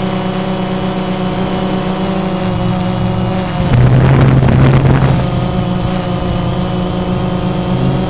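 A flying drone's electric motors and propellers whining steadily at several fixed pitches, with a louder rush of noise for about a second and a half, roughly four seconds in.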